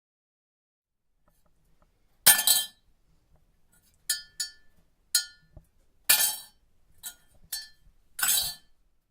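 Crockery being handled: about eight sharp clinks of china or glass, each with a short ring. The loudest comes about two seconds in, with more scattered through the rest.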